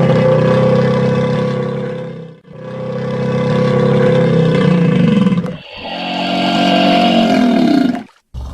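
Crocodile bellowing: three long, deep, loud calls of about two to three seconds each, with short breaks between them.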